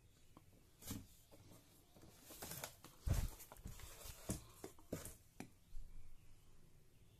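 A large plastic bottle of cooking oil being handled and lifted out of a cardboard box: plastic rubbing and scraping against cardboard, with several light knocks and one dull knock about three seconds in.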